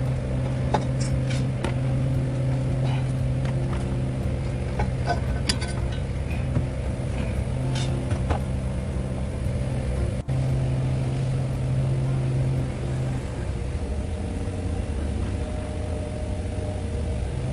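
A 2021 Chevrolet Tahoe / GMC Yukon engine running steadily, with a few scattered sharp clicks over it; the engine is being checked for a misfire code and a ticking noise. The hum eases a little in the last few seconds.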